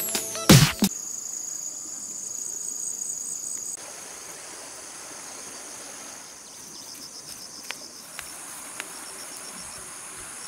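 Chorus of insects in vegetation, shrilling in steady high continuous tones; a pulsing high trill joins about six and a half seconds in, and the chorus drops a little just before four seconds in.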